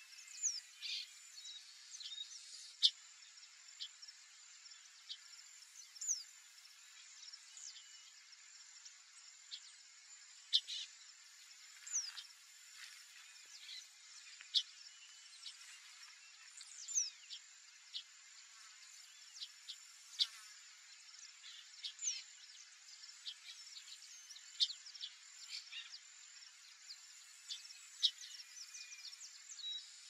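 Grassland ambience: a steady high insect drone, with many short, sharp, downward-sliding bird chirps every second or two.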